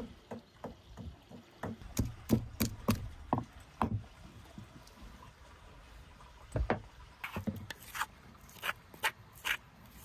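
Wooden pestle pounding and grinding garlic cloves in a wooden mortar: a series of irregular wooden knocks and thuds. In the second half, the crushed garlic is scraped out of the mortar into a wooden bowl with several short scraping strokes.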